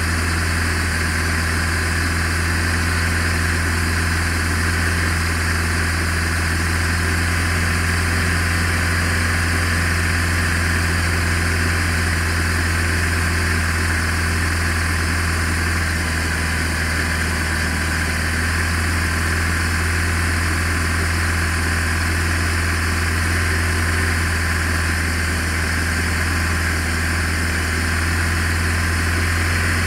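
BMW R1200RT's boxer twin engine running in second gear, held at a steady speed.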